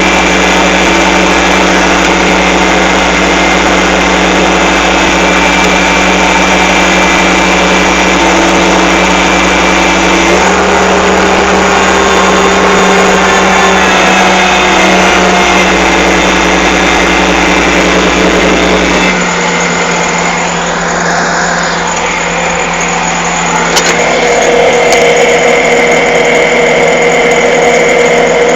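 Excavator's diesel engine running steadily under load, its note shifting about ten seconds in and again near twenty seconds, where it briefly drops a little in loudness.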